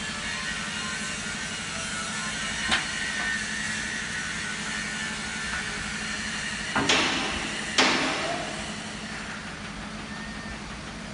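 Heavy steel scissor lift lowering on its hydraulic power pack: a steady hum, with a sharp metal clank a few seconds in and two louder clanks about a second apart past the middle.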